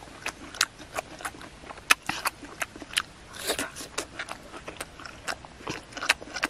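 A boy chewing ripe jackfruit flesh right at the microphone: an irregular run of short mouth clicks, about three or four a second.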